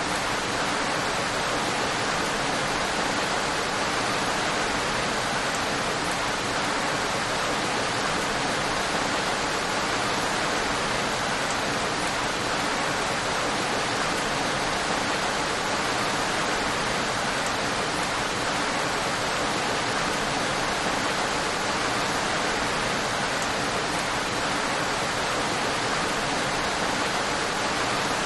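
Steady, even rain with no separate drops or thunder standing out.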